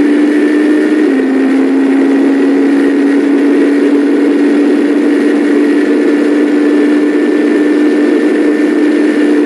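Super Formula car's 2-litre turbocharged Toyota four-cylinder heard onboard, running at a steady high engine note. The pitch drops slightly about a second in, then holds.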